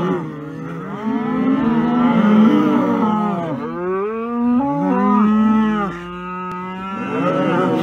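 A herd of cattle mooing, several cows calling at once in long, overlapping moos that rise and fall in pitch.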